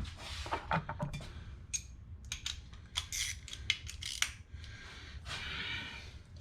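Hand tools and bolts clinking and clicking in quick irregular strokes as bolts are fitted and snugged down, with a short rasping stretch about five seconds in.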